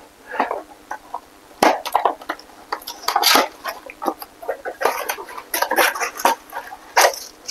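A cardboard box being handled and opened by hand: irregular rustling and scraping of the flaps, with a few sharper taps and clicks.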